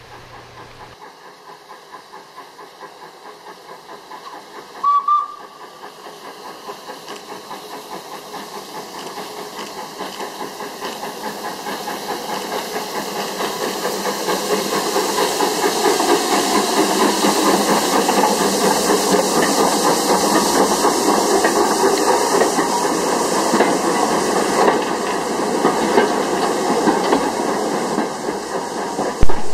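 Small saddle-tank steam locomotive working a train past, its exhaust beats rhythmic and growing louder as it approaches, then easing as the wagons roll by. A short whistle blast sounds about five seconds in, and a brief sharp knock comes near the end.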